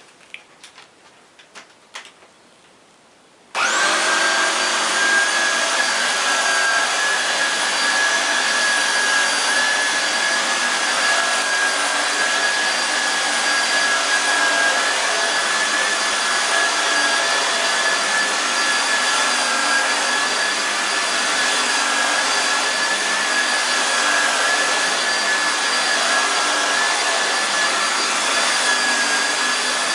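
Vax Mach Air bagless multi-cyclonic upright vacuum cleaner switched on after a few quiet handling clicks, its motor spinning up and then running steadily while vacuuming, with a steady high whine over the rush of air.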